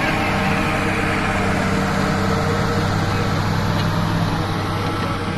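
Bulldozer's diesel engine running at a steady speed, a low even drone.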